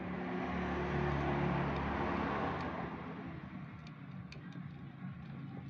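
A motor vehicle passes by, its engine sound swelling to a peak and fading away over about three seconds. A few faint clicks follow later.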